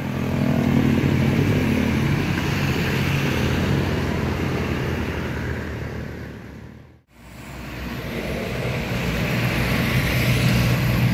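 A dump truck's engine running as it pulls away, fading over several seconds, then a brief drop to silence about seven seconds in. After that, street traffic comes in: a light truck and motorcycles getting louder as they approach.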